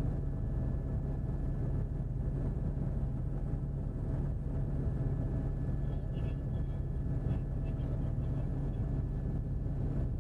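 Steady drone of a news helicopter's engine and rotor, heard from inside the cabin through the reporter's open microphone.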